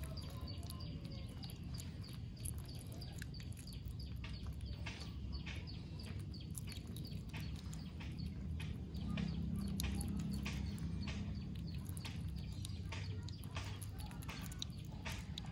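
Baby otter chirping while it eats raw catfish: short high squeaks repeated about four a second at first, then more scattered, mixed with sharp crunching clicks of chewing, over a steady low rumble.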